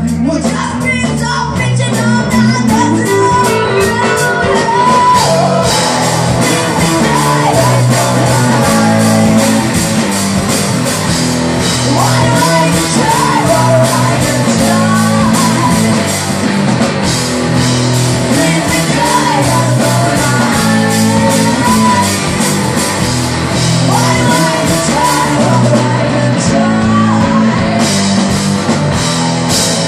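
Live rock band playing: a female lead singer over two electric guitars, electric bass and a drum kit with a steady beat.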